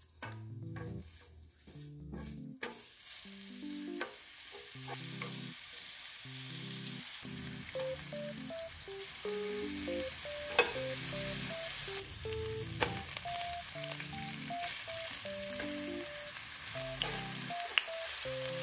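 Thin slices of beef brisket sizzling on a hot electric griddle pan. The sizzle starts about three seconds in as the slices go down, with occasional sharp clicks of a metal utensil against the pan, over a soft background melody.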